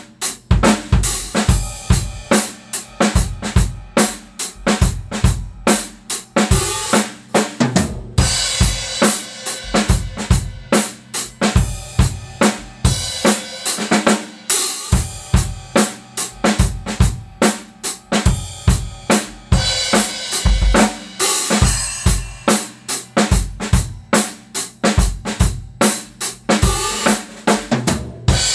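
Acoustic drum kit playing a busy funk groove: kick drum, snare and hi-hat in a tight, steady pattern, with stretches of cymbal wash.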